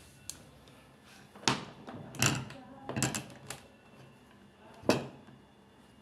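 Several sharp knocks and clatters of a washing machine's casing and tools being handled: one about a second and a half in, a cluster from about two to three and a half seconds, and a loud one near five seconds.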